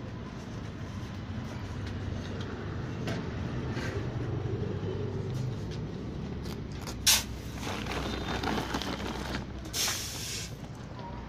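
Steady low rumble with grain-handling noises at a chain-hung beam balance: one sharp knock about seven seconds in, then a short rush of noise near the end as the metal scoop and scale pan are worked.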